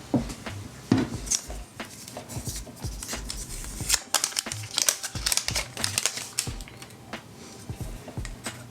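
Packaging being handled by hand: crinkling with many small clicks and taps, busiest in the middle.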